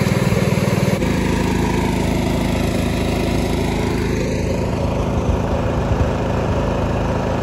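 Diesel engine of large farm equipment running steadily, its sound shifting from a rapid low pulsing to a steadier hum about a second in.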